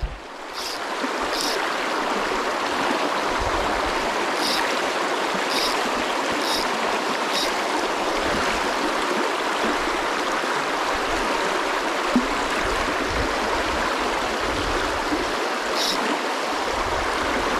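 Creek water rushing steadily, building over the first two seconds and then holding even, with a few brief high chirps over it.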